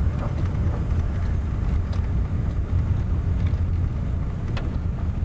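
Car driving slowly, heard from inside the cabin: a steady low rumble of engine and road noise, with a few faint ticks.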